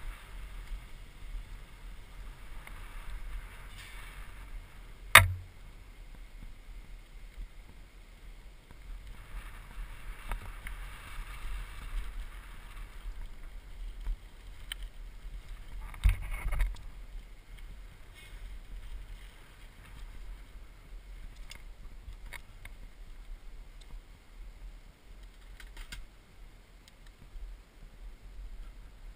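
Mountain bike rolling fast down a gravel trail, heard from a helmet-mounted camera: a steady low rumble of wind on the microphone and tyres on gravel, with faint ticks and rattles. A sharp knock about five seconds in, the loudest sound, and another about sixteen seconds in.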